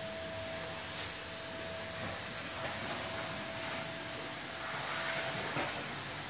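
Steady mechanical hiss with a faint constant hum tone from running equipment, such as the pumps and filtration of a reef aquarium.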